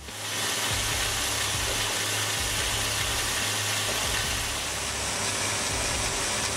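Log debarking machine running steadily: a dense, even hiss of machine noise over a low engine hum, coming up within the first half second.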